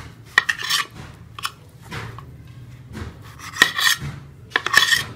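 Kitchen knife sawing through the crusts of slices of white sandwich bread on a plate: a series of short rasping strokes.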